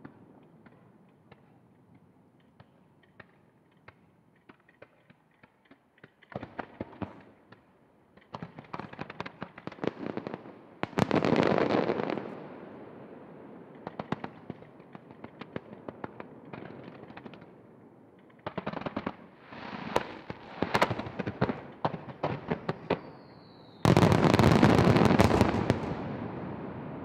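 Aerial fireworks shells fired in rapid starmine volleys, a dense run of crackling reports that comes in several waves. A brief falling whistle comes just before the loudest barrage near the end, which then fades away.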